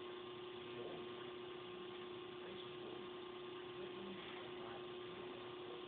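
A steady hum at one pitch over faint background noise.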